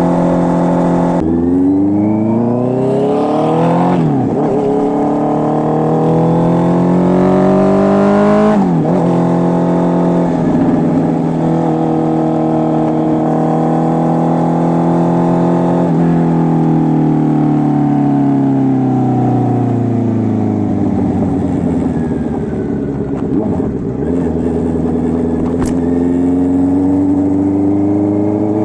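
Honda CB650R's inline-four engine through an SC Project full exhaust system, running under load. After a steady note it accelerates through the gears, with upshifts about 4 and 9 seconds in. It then holds speed, drops revs as it slows, and pulls away again near the end.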